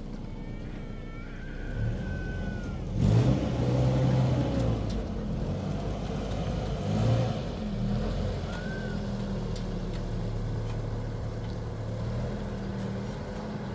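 An engine running, revving up sharply about three seconds in and again around seven seconds, then settling back to a steady run.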